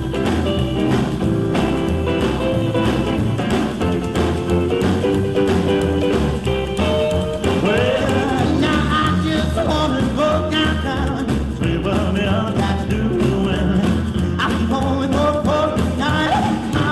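Rock-and-roll song with a steady beat, in a stretch without sung words.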